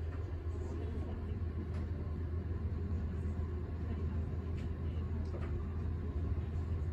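Steady low hum of room air conditioning, with a few faint light clicks.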